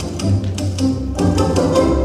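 Recorded orchestral music with strings for a tap routine, with sharp clicks falling on the beat several times a second.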